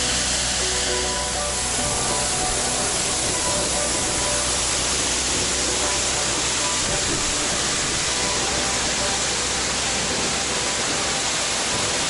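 Ephemeral waterfall running full after rain: a tall column of water falling onto rocks, a steady, loud rush of falling water and spray.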